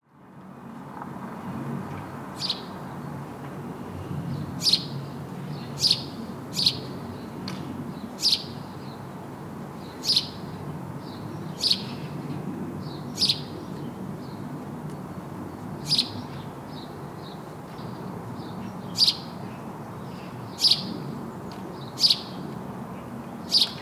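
A lone house sparrow chirping: single short, sharp chirps repeated every one to three seconds, over a steady low background rumble.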